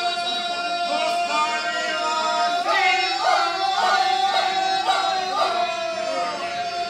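Four men singing ganga, the traditional a cappella folk song style of the Croatian and Bosnian hinterland. One voice holds a long, steady high note while the others move around it in close, rough harmony, with rhythmic swells roughly every half second through the middle.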